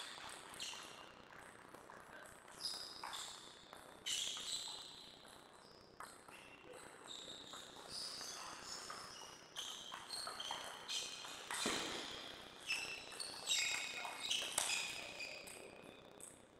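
Celluloid-type table tennis ball clicking off rubber paddles and bouncing on the table in rallies and serves, a sharp irregular tapping that comes thicker in the second half.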